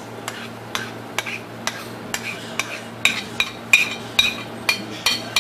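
Metal spoon clinking again and again against a steel vessel, about two or three strikes a second, the later strikes louder and ringing, as ground masala paste is spooned out and scraped off.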